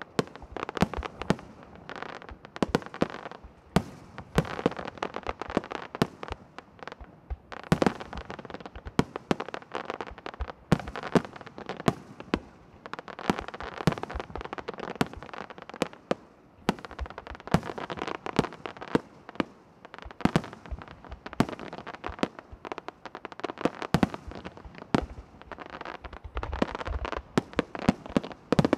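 Aerial firework shells bursting in quick succession: sharp bangs several times a second over a continuous din of smaller pops and crackle.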